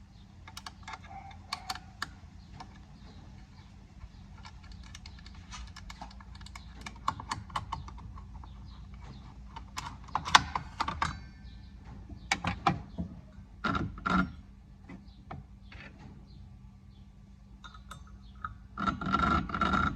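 Irregular light clicks, taps and small knocks from handling an Allen key and the metal parts of a drop saw's blade cover, with a few louder knocks about halfway through.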